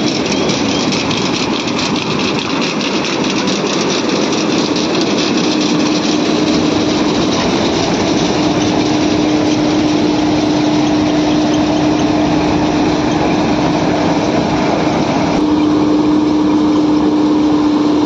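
John Deere W70 combine harvester, with a 100 hp engine, running in the field: its engine and machinery give a steady, loud hum with one constant tone, shifting abruptly near the end.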